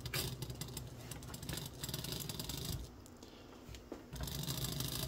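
HO scale MDC Roundhouse Shay chassis running slowly under power: its small electric motor humming while the gear train clatters and rattles, a little loud for its size, dropping quieter for about a second past halfway. The owner believes something in the drive is slipping, with old oil left in the gears.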